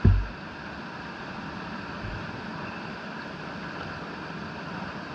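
Steady rushing water noise of a mountain stream, with a heavy low thump right at the start and a softer low thump about two seconds in.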